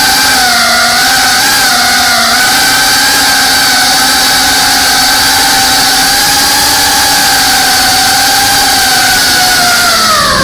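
FPV quadcopter's brushless motors and propellers whining steadily in flight, heard from the camera mounted on the drone. The pitch wavers slightly with throttle and drops right at the end.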